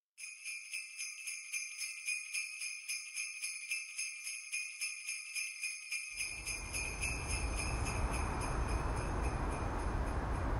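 Sleigh bells shaken in a steady rhythm, about four shakes a second. About six seconds in, a steady low rumble of city traffic comes in, and the bells fade away under it.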